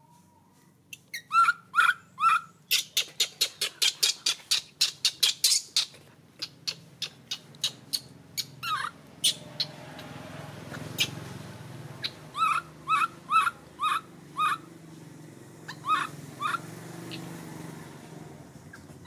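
Baby monkey crying: short, high pitched calls in quick runs, a fast string of them in the first few seconds, then groups of four or five later on.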